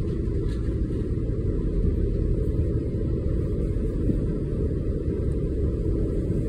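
Steady low rumble of a tour boat's engine, heard from on deck.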